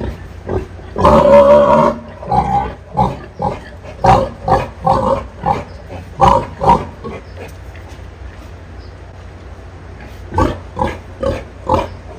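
Pig grunting: one long, loud call about a second in, then a quick run of short grunts, a pause, and four more short grunts near the end.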